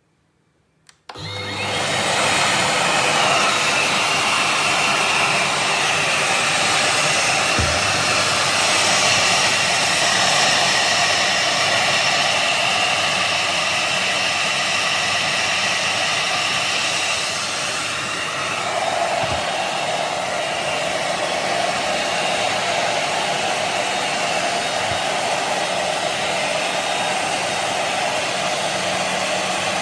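VOLUEX Jimmy JV35 handheld anti-mite vacuum cleaner switched on about a second in and running steadily with a high motor whine. Its tone shifts a little about two-thirds of the way through.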